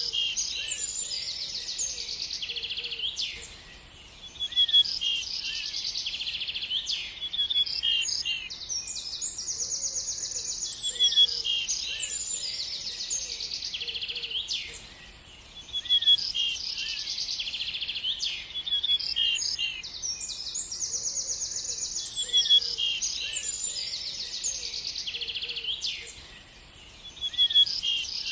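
Several songbirds chirping and singing together, rapid high trills and repeated short notes. The same stretch of birdsong repeats about every 11 to 12 seconds as a loop, with a brief lull in each pass.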